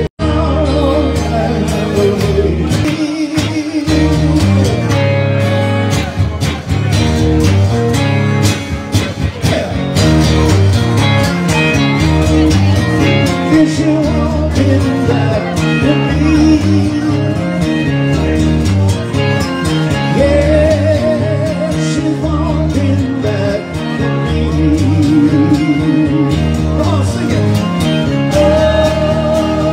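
Live rock-and-roll performance: a man singing into a microphone over an amplified electric guitar, with a steady beat. There is a split-second dropout right at the start.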